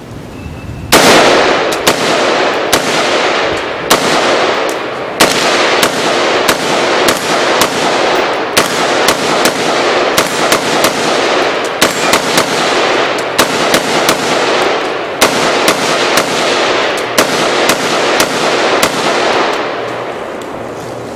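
AR-15-style rifle fired in a long string of rapid shots, about two a second at uneven spacing, starting about a second in and stopping near the end. Each shot echoes into the next.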